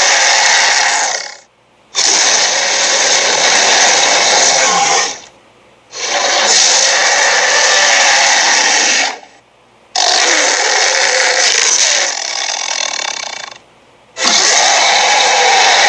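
Cartoon sound effect: a loud, steady, harsh noise played in stretches of about four seconds, broken by four short gaps.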